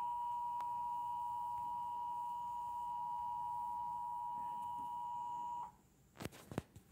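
Emergency Alert System attention signal: a steady two-pitch alert tone from a TV's speaker, held at an even level, that cuts off abruptly near the end. A few brief clicks follow.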